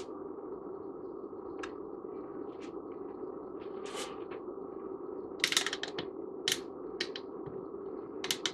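Scattered small clicks and rattles of test clips and leads being handled and attached to an old capacitor, with a quick cluster of sharper clicks about five and a half seconds in, over a steady hum.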